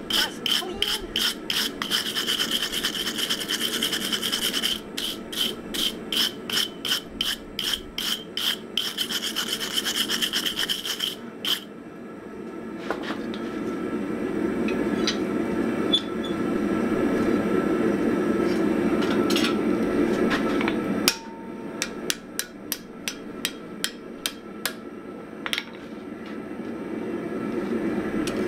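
Rapid scraping strokes, about five a second, across a glowing steel damascus billet on the anvil, the sound of scale being brushed off the hot steel. After about 11 seconds the strokes stop, leaving a steady low rushing noise with scattered light taps, and a sparser run of strokes comes near the end.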